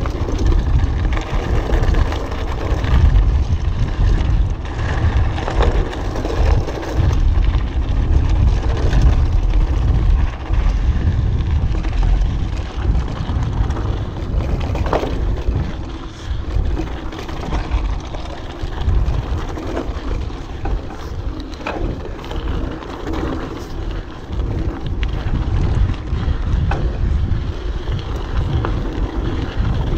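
Orbea Alma mountain bike riding over a rocky trail, heard through an action camera's microphone: steady rumbling wind buffeting on the mic over the crunch of tyres on rock. A few sharp clicks and knocks from the bike stand out, the clearest about 15 and 22 seconds in.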